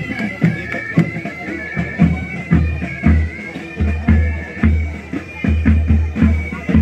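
Military pipe band: bagpipes playing a marching tune over drums beating time, about two strokes a second.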